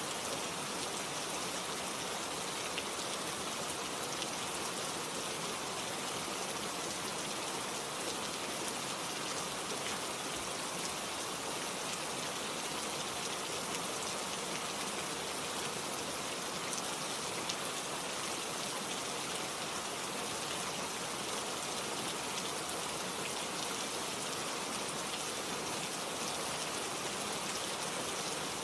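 Steady rain falling, a constant hiss of drops with fine patters of individual drops hitting a surface.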